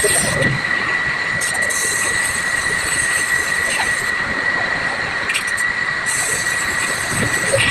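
Gas welding torch flame hissing steadily, with a constant high whistling tone, while a leak in an aluminium radiator tank is welded with filler rod.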